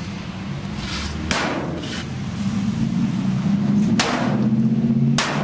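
Sledgehammer striking scrap metal: three sharp, heavy blows, about a second and a half to 3 seconds apart. A steady low hum runs underneath.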